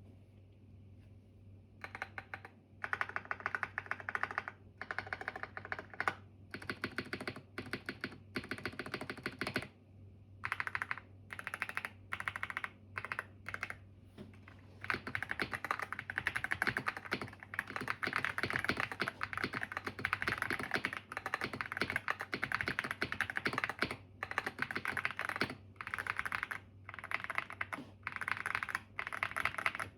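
Yunzii X71 mechanical keyboard being typed on: rapid key clicks in bursts with short pauses, becoming near-continuous fast typing about halfway through. A faint steady low hum sits underneath.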